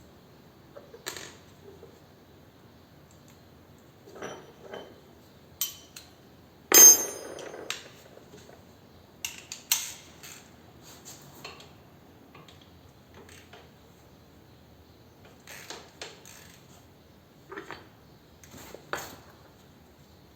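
Hand tools clinking and knocking against metal motorcycle parts in scattered short strikes, the loudest about seven seconds in.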